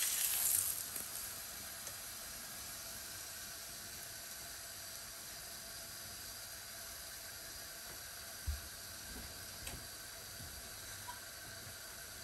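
Ghee-brushed whole-wheat paratha sizzling on a hot tava over a gas flame. The sizzle is louder for the first second, then settles into a soft, steady hiss.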